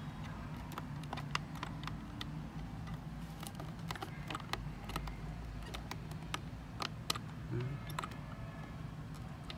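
Irregular clicking of the plastic buttons on a Seiko radio-controlled alarm clock being pressed, over a low steady hum.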